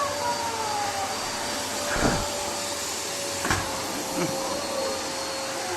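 Electric vacuum cleaner running steadily with a constant motor whine while sucking up spilled vermicelli from the floor. There are a couple of dull knocks, about two seconds in and again a second and a half later.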